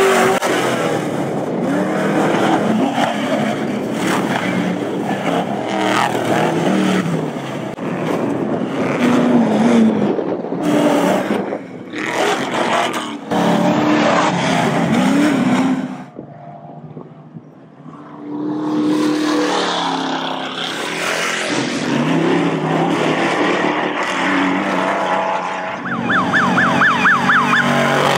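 Off-road desert race vehicles running at speed, their engines revving up and down as they pass one after another. The sound changes abruptly several times, with a brief quieter lull about two-thirds of the way through.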